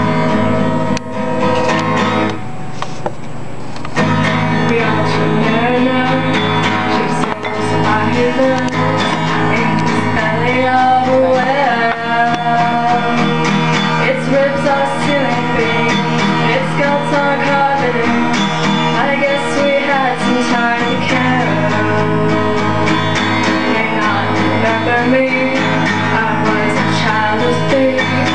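Solo acoustic guitar playing, with a woman's singing voice joining about ten seconds in.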